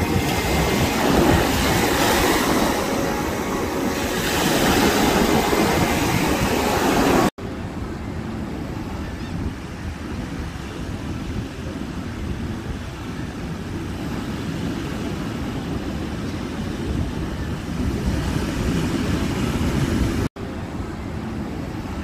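Waves breaking and washing up on a sandy beach, a loud surf hiss for about the first seven seconds. After a brief cut-out about seven seconds in, a quieter, deeper rush of surf with wind on the microphone follows, with another brief cut-out near the end.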